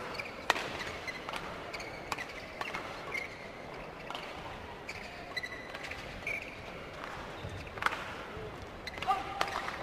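Badminton arena ambience between points: crowd murmur with a few short squeaks of shoes on the court and scattered sharp taps. Near the end come the sharp strikes of rackets on a shuttlecock as a rally starts.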